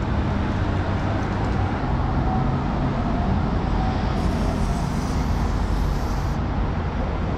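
Aerosol can of chain lubricant hissing for about two seconds near the middle as it sprays onto a motorcycle's drive chain, over a steady traffic rumble.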